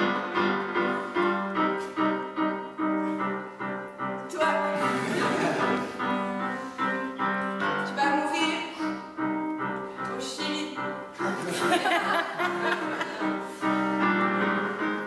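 A piano-sounding keyboard playing repeated notes and chords at a steady pulse.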